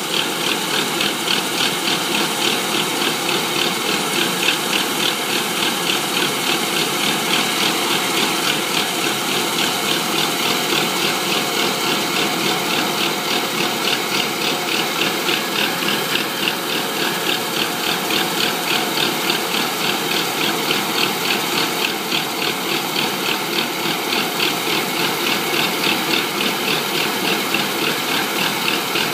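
Rice combine harvester running steadily: a continuous engine and machinery noise with a fast, even rattle.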